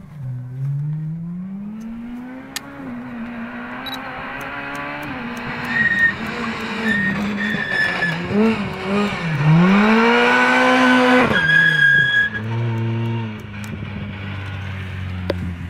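Ford Fiesta R2 rally car's engine revving hard as it drives through the corners, the revs climbing and dropping several times with short tyre squeals. About eleven seconds in the revs climb to a peak and cut off sharply, then the engine settles to a lower steady run.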